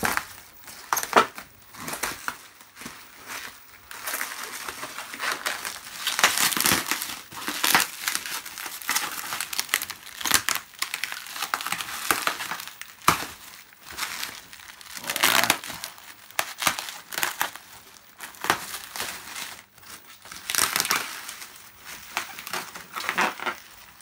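Plastic wrapping and packing material crinkling and rustling in irregular bursts, with foam packing peanuts shifting and a few sharp crackles.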